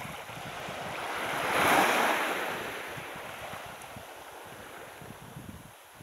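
Sea water washing onto a rocky shore, swelling to a hiss that peaks about two seconds in and then slowly fades. Wind rumbles on the microphone underneath.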